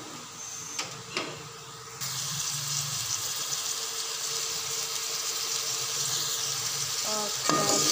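Sliced onions and browned chicken sizzling in hot oil in a metal pot, with two clinks of a metal slotted spoon against the pot about a second in. The sizzle jumps louder about two seconds in and stays steady.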